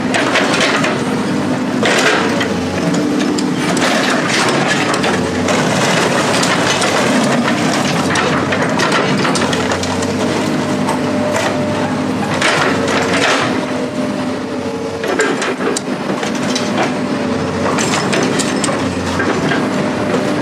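Heavy machine's engine running steadily while scrap metal is crushed and torn, with repeated harsh crunching and cracking at irregular intervals.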